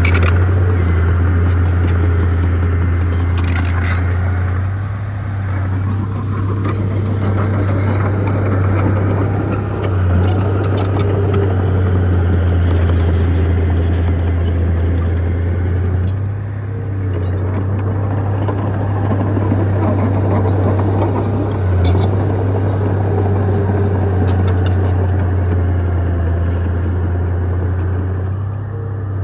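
Heavy diesel engine of an earth-moving machine running hard with a steady low drone, easing off briefly about every five to six seconds as the load changes.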